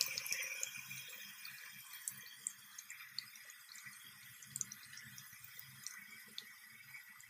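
Tap water running over a paintbrush's bristles into a ceramic sink basin, a steady splashing with small drips and ticks, rinsing off dried oil paint loosened by an oil-soap soak. It is louder in the first second, then settles to a quieter steady flow.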